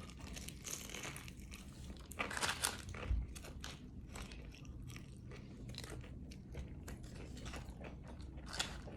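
A person biting and chewing food close to the microphone, with a louder run of bites a little over two seconds in.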